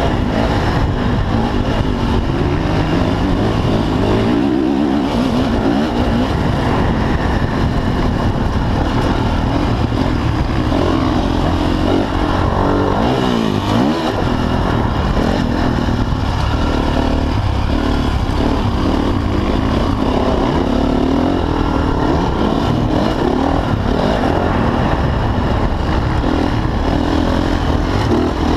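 Motocross dirt bike engine revving hard under racing throttle, heard close up from on board. Its pitch rises and falls through the gears, with the throttle briefly chopped and opened again about five seconds in and again around fourteen seconds.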